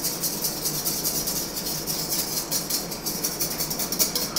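Wire whisk beating zabaglione in a stainless steel bowl, its wires scraping and ticking against the metal at about five strokes a second. The custard is being whisked over heat as it thickens into a dense cream.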